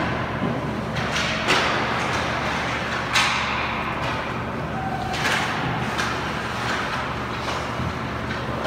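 Ice hockey play in an arena: a steady wash of skating and rink noise, broken by sharp knocks about one and a half, three and five seconds in, the one at three seconds the loudest.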